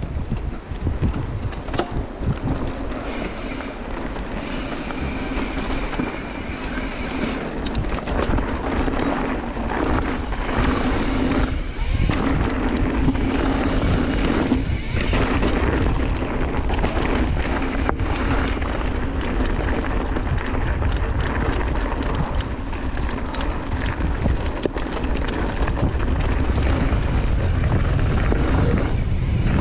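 Mountain bike ridden fast down a dirt trail, heard from a camera on the rider: wind rushing over the microphone, tyres rolling over dirt and leaves, and knocks and rattles from the bike over bumps.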